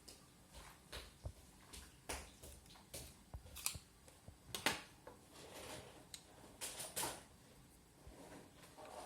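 Close-up handling of a Mazda 6 key fob: scattered light plastic clicks and brief scraping as the key is worked open for a battery change.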